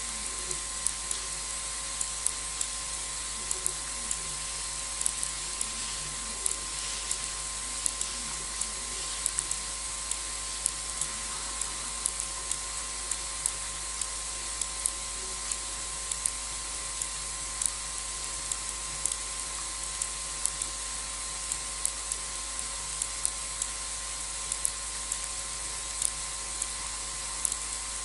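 Steady hiss with a faint constant hum, broken by irregular sharp high ticks, about two or three a second. No lion calls are heard.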